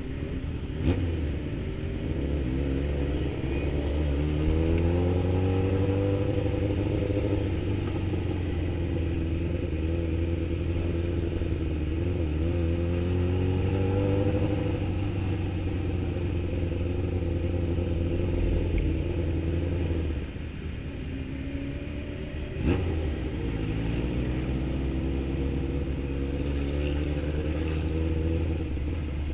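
Sportbike engine heard from the rider's seat, pulling up through the gears in several rising runs of pitch with steady stretches between. It eases off about two-thirds in, with a single sharp knock soon after, then climbs again.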